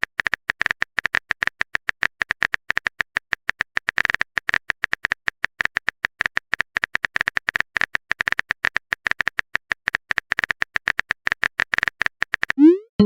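Phone keyboard typing sound effect: a long, fast run of tapping clicks, several a second. It stops near the end and gives way to a short rising swoosh, the message-sent sound.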